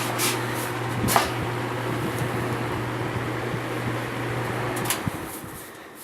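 Edison two-speed 20-inch box fan running with a steady motor hum and rushing air, with a couple of light knocks in the first second or so. About five seconds in, a click cuts the motor hum and the air noise fades as the blades coast down.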